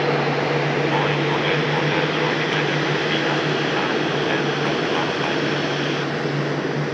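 Jet airliner on final approach to land, its engines making a steady noise with a low hum, easing off slightly toward the end.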